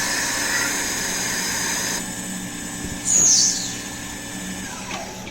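RAY FENG RSL16 Swiss-type CNC lathe running, a steady machine hum with hiss. About three seconds in comes a loud, short falling whine, and a softer falling tone follows near the end.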